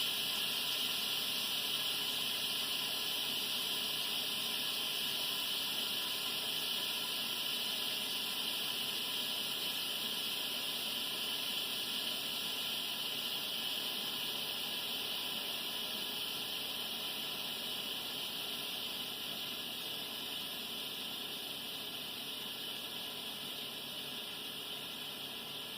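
Instant Pot pressure cooker venting steam through its release valve, a steady hiss that slowly fades as the pressure drops after cooking.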